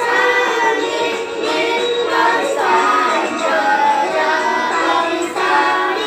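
A patriotic song with singing over music, continuous and loud.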